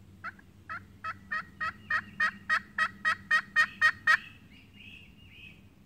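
Hand-held turkey call worked in a run of about fourteen hen yelps, coming quicker and louder toward the end and stopping just after four seconds in.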